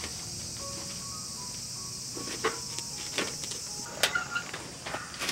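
Steady high-pitched buzzing of insects, with a couple of sharp clicks; the buzzing cuts off about four seconds in, followed by a few knocks and rustles. Soft background music plays underneath.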